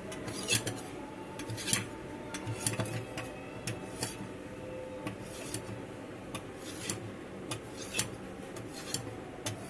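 Knife scraping and clicking against a plate while set china grass (agar) jelly is cut into small pieces, with irregular sharp clicks about one to two a second.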